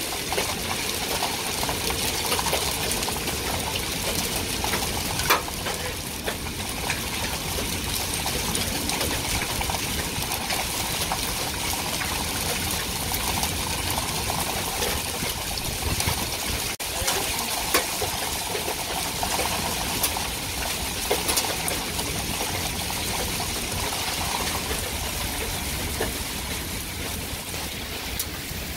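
Heavy rain and hail coming down: a steady rush with scattered sharp knocks of hailstones striking.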